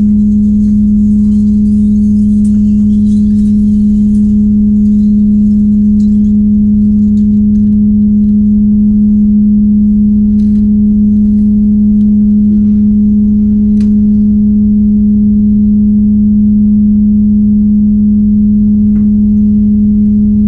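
A loud, steady hum at one constant low pitch, with a few faint short clicks about halfway through and near the end.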